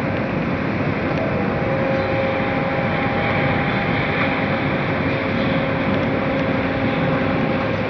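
Truck-tipping platform unloading sugar beets: a steady rumble of machinery and beets pouring into the reception pit, with a steady mid-pitched whine joining about a second and a half in.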